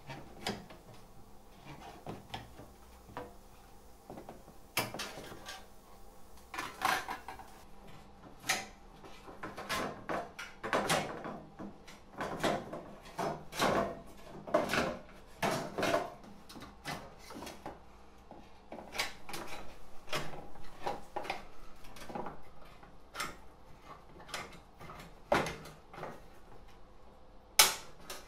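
Hand snips cutting a pressed sheet of thin metal: an irregular run of snipping clicks and crunches, thickest in the middle, with one sharp loud click near the end.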